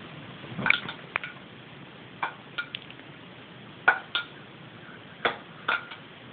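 A small plastic pot of Vaseline being tossed and caught in a game of catch, giving short sharp clicking knocks, mostly in close pairs, every second or two.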